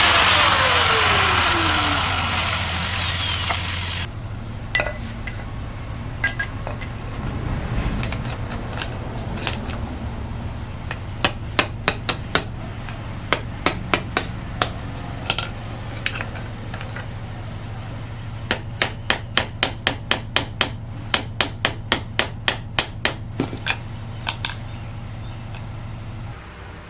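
Loud machine noise with a falling whine, spinning down and cutting off about four seconds in. Then a steady low motor hum under sharp hammer blows, scattered at first and later in quick runs of about two to three strikes a second.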